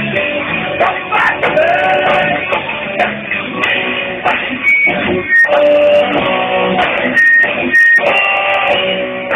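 Live rock band playing loud on electric guitars and drums, heard thinly through a phone's microphone, with a few abrupt short stops a little past halfway.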